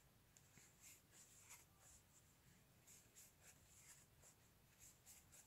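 Near silence with faint, irregular soft scratching and rustling of a wooden crochet hook pulling chenille yarn through stitches.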